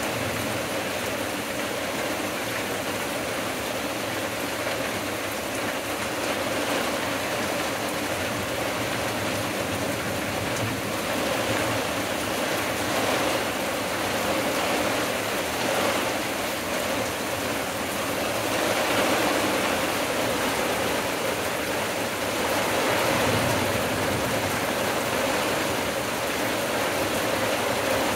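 Heavy thunderstorm rain pouring steadily onto the forest and the deck as an even hiss, swelling slightly a few times.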